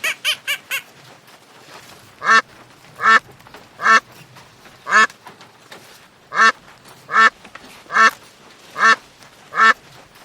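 Duck quacking: a quick run of short calls at the start, then a steady series of single loud quacks, roughly one a second.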